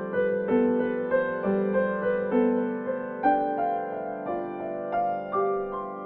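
Background piano music: a slow melody with a new note struck about every half second to a second.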